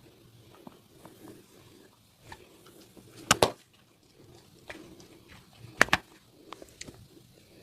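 Upper-body massage by a barber: two sharp double snaps about two and a half seconds apart, with soft rubbing and faint clicks between.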